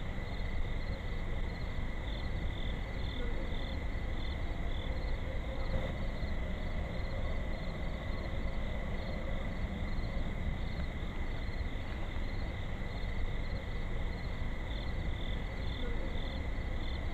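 Crickets chirping in steady, pulsing trills at night, over the constant low hiss and rumble of a trail camera's microphone.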